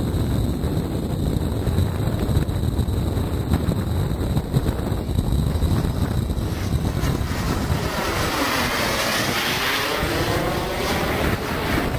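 Twin model-jet turbines of a scratch-built de Havilland DH110 in flight. At first there is mostly a low wind rumble on the microphone. Then the turbines' rushing whoosh swells loud as the model closes in and passes overhead around nine to ten seconds in, sweeping in pitch as it goes by.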